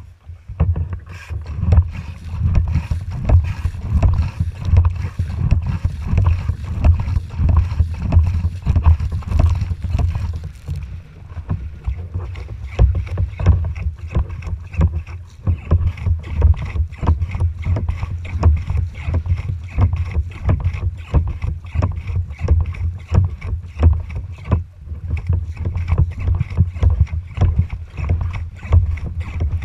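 Strong wind buffeting the microphone, a loud gusting rumble, over choppy water slapping and splashing against a kayak's hull.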